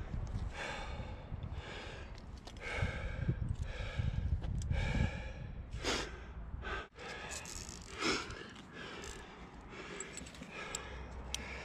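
A climber breathing hard in and out after exertion: a run of heavy breaths about a second apart. Near the end there are a few light metallic clinks of carabiners.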